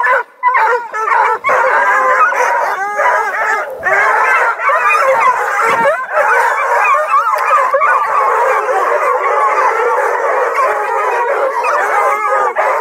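A pack of young hounds (bluetick and redbone coonhounds, black and tans and beagle mixes) baying, howling and yipping all at once, many overlapping voices rising and falling in a continuous chorus.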